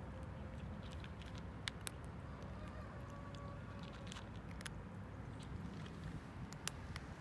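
A cat crunching dry kibble: sharp, irregular crunches over a steady low background rumble.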